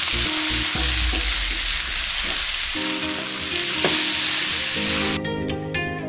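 Minced meat and garlic sizzling in a hot oiled wok while a spatula stirs and breaks it up. Music is faintly underneath from about halfway; about five seconds in, the sizzle cuts off suddenly and plucked guitar music is left alone.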